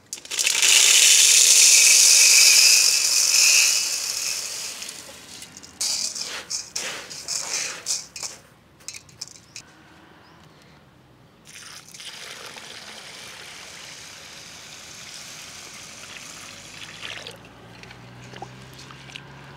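Dry grains and lentils poured from a plate into a steel bowl with a loud rushing rattle, followed by a few scattered clicks. About twelve seconds in, water starts pouring steadily into the bowl.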